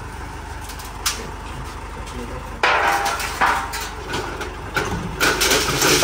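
Heavy diesel engine running with a steady low rumble, broken by a sudden loud hissing, rattling burst about two and a half seconds in and another near the end.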